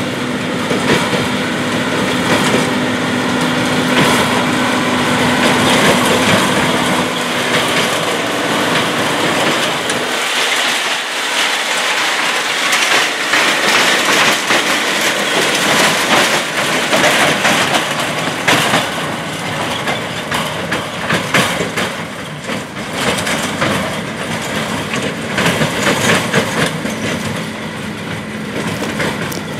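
A John Deere tractor's diesel engine running as it tows an empty forage wagon across corn stubble, with the wagon's steel body rattling and clattering over the rough ground.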